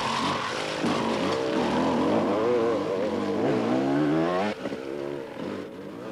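Off-road enduro motorcycle engine revving up and down as the bike is ridden, its pitch rising and falling repeatedly; the sound drops sharply about four and a half seconds in and carries on more faintly as the bike moves away.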